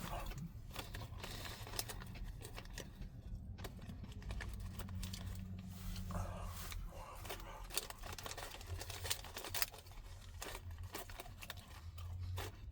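Close-miked eating of McDonald's fast food: scattered mouth clicks and chewing, with short crinkles of the paper packaging being handled.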